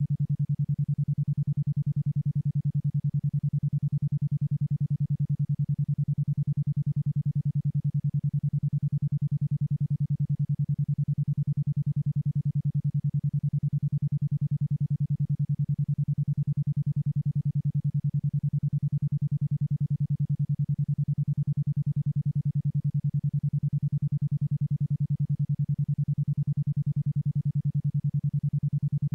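Isochronic tone: a single low electronic tone switched on and off in rapid, even pulses about ten times a second (10.2 Hz, in the alpha brainwave range), steady and unchanging.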